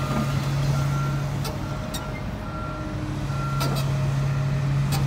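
Komatsu PC350LC-8 excavator's diesel engine running steadily, with an alarm beeping about once a second, typical of a travel warning alarm while the machine moves on its tracks. A few sharp metallic clanks stand out, about one and a half seconds in, at nearly four seconds and near the end.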